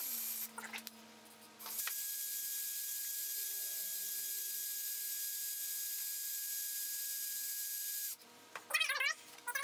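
Cordless drill spinning a brake cylinder hone in a small motorcycle cylinder to clean up its corroded bore: a steady whine with the hiss of the hone scraping the wall. It stops about half a second in, runs again from about two seconds in for about six seconds, then stops. A cat meows a few times near the end.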